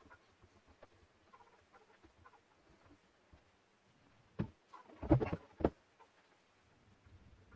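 Faint small scratches and ticks, then a sharp knock about four and a half seconds in, followed by a quick cluster of louder knocks and clatters and one more knock just after.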